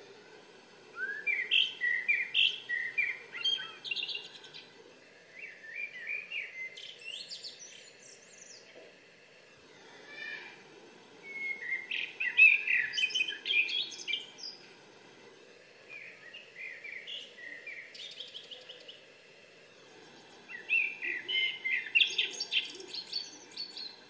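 A songbird's song played back through an iPad's speaker, alternating with the live bird singing back in reply. There are five phrases of quick chirps and trills, each a few seconds long with short pauses between them, and the louder phrases come from the iPad.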